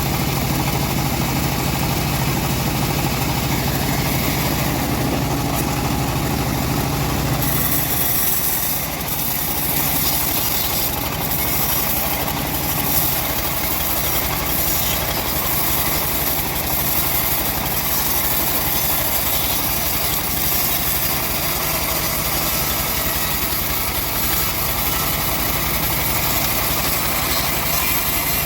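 The engine of a home-built bandsaw sawmill running steadily. About eight seconds in, the low hum drops back and a high hiss rises and holds, as the sound shifts for the rest of the stretch.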